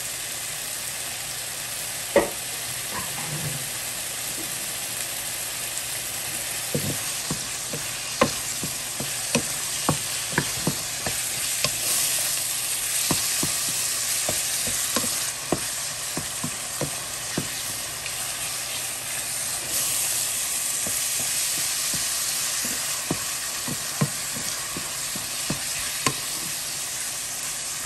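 Beef liver frying with diced onion and red bell pepper, sizzling steadily, while a wooden spoon stirs it. The spoon knocks and scrapes against the nonstick pan at irregular moments.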